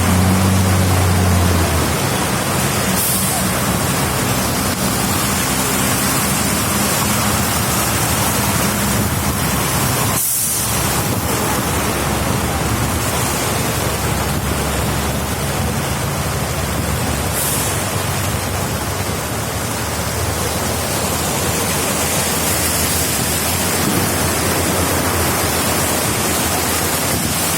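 Heavy rain falling in a steady, loud rush, with a brief low engine hum at the start that fades out.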